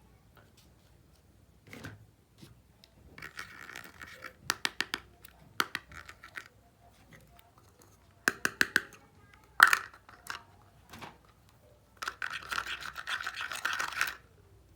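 Small toy kitchenware handled against hard plastic: bursts of rapid scratchy clicking and scraping, a few sharp clicks, and a longer scrape near the end.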